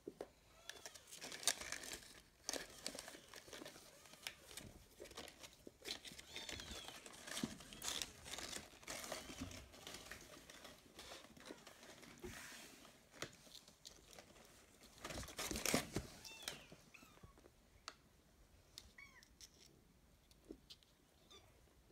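Kittens playing among crumpled kraft paper, cardboard and plastic weight plates: irregular paper crinkling and rustling with scattered light clicks and knocks, loudest about a second and a half in and again around sixteen seconds. A few faint, short high kitten mews come through now and then.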